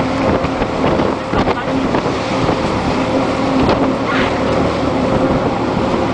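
Fishing boat's engine running with a steady hum, under the rush of wind on the microphone.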